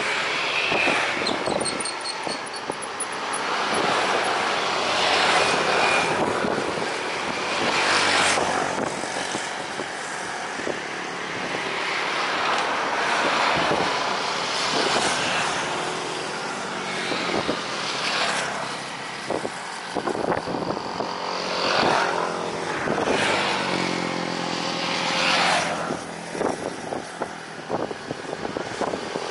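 Road traffic passing close by: cars and motorcycles swelling and fading one after another every few seconds, one engine's pitch gliding as it goes past near the end.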